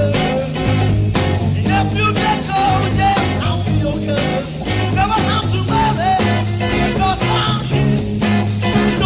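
Upbeat 1960s band music with a steady beat: drum kit, electric bass and electric guitars, with a wavering lead melody over the top.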